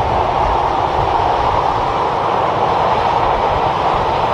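Steady highway traffic noise: the tyres and engines of passing vehicles, among them a semi-truck pulling a tanker trailer, an even rushing sound over a low rumble.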